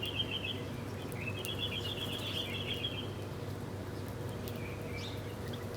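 Small birds chirping: a rapid twittering run of high notes for about two seconds, then a single short call near the end. Underneath is a steady low background hum.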